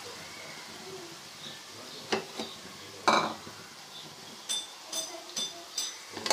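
Garlic-ginger paste sizzling faintly in hot ghee in a cooking pot, with a few soft knocks and then about five sharp, ringing clinks of a spoon against the pot in the second half.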